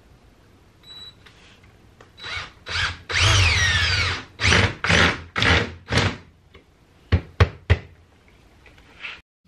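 Power drill driving screws into a countertop's edge: a second-long run whose pitch slides down and back, then four short trigger pulses about half a second apart, followed by three sharp clicks.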